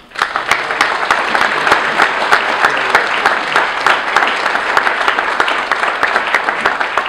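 Audience applauding: many people clapping together, breaking out suddenly as a speech ends and keeping up at a steady level.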